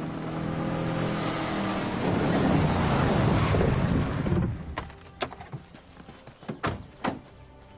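Jeep Wrangler driving slowly along a dirt forest track, the engine and tyres growing louder and then stopping about four and a half seconds in. A few sharp clicks and knocks follow as a car door is opened.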